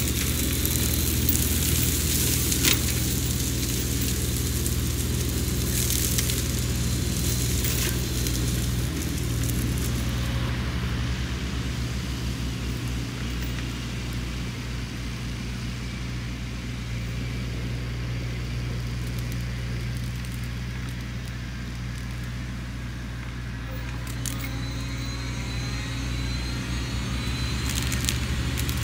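Sany SY50U mini excavator's engine running steadily under load while its Mongo flail mulcher head shreds brush, with crackling and snapping of wood and vegetation. The crackling is heaviest in the first several seconds and again near the end, and thins out in the middle.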